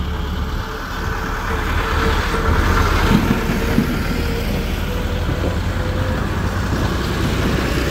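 Steady low rumble of a running motor vehicle, with a faint steady hum above it.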